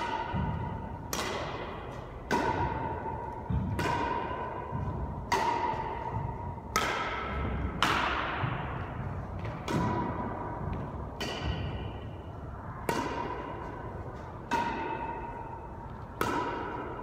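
Badminton rackets hitting a shuttlecock back and forth in a rally, about a dozen hits at uneven intervals of a second or two. Each hit is a sharp thwack followed by a pinging ring that echoes off the hard, bare walls of the court.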